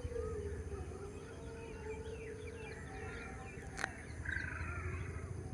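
Many small birds chirping and twittering at once, with a low steady rumble underneath and a single sharp click a little before four seconds in.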